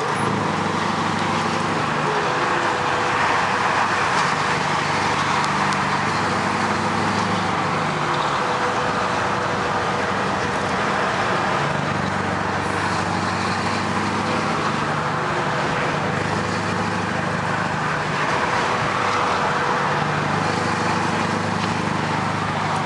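Scania 143 450's 14-litre V8 diesel running steadily under way at motorway speed, heard from inside the cab, with heavy road and wind noise; the engine note shifts a few times.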